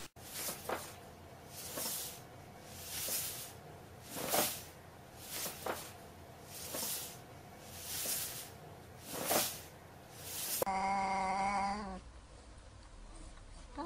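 A paper bag rustling in soft swishes, about one every second and a quarter, as a cat shifts inside it. Then a cat gives a low, drawn-out yowl of just over a second, squaring up to another cat.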